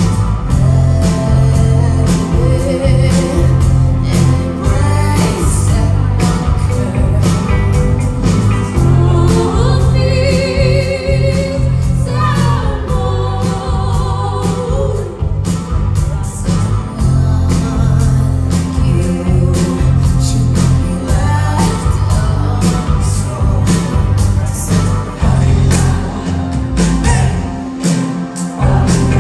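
Live rock band playing through a venue PA: sung vocals over electric guitars, bass, drums and keyboards, with a steady drum beat and heavy low end.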